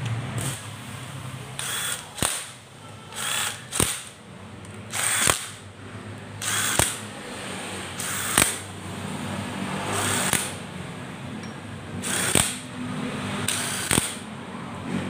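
Red handheld power screwdriver running in short bursts, about nine times, one to two seconds apart, several ending in a sharp click, as it drives the clutch-cover bolts on a Honda Supremo motorcycle engine.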